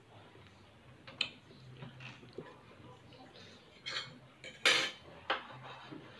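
Utensils and a dinner plate clinking while eating: a few sharp, scattered clinks and one louder, slightly longer scrape about three-quarters of the way through.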